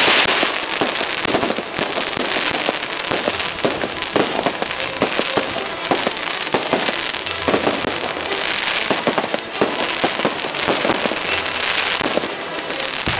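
Aerial fireworks going off in a rapid, unbroken string of bangs and pops, with a few stretches of denser crackling.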